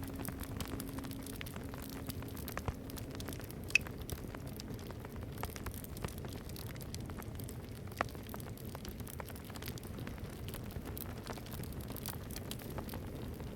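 Campfire crackling steadily with small pops, and a couple of sharper pops about 4 and 8 seconds in. The last of a singing bowl's low hum fades out in the first few seconds.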